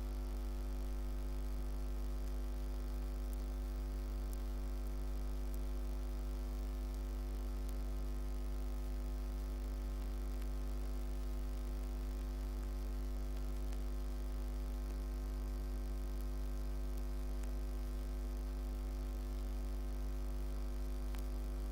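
Steady electrical mains hum: a deep, unchanging drone with a dense stack of higher overtones.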